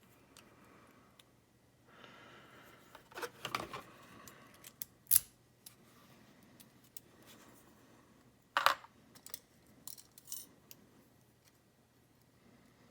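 Small metal lock parts and tools clicking and clinking as a padlock is being taken apart by hand, with some light rustling and a few sharper clinks, the loudest about five and nine seconds in.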